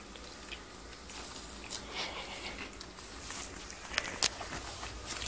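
Pug puppies shuffling and scratching about, a soft patter of small paws with light rustling and a couple of sharp clicks about four seconds in.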